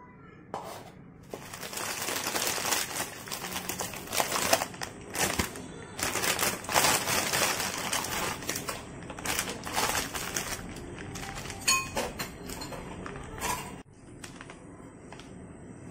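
Plastic wrapper of a Korean instant jjajang noodle packet crinkling and crackling as it is opened and handled and the sauce sachets are pulled out, starting about a second in and cutting off suddenly near the end.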